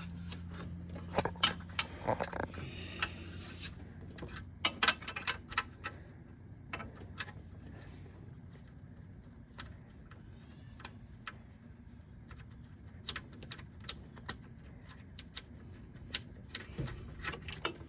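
Irregular metallic clicks and rattles of the old accelerator cable and its fittings being worked loose, coming in clusters with quieter gaps between.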